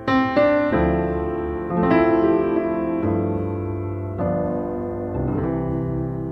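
Background piano music: sustained chords, with a new chord or note struck every second or so.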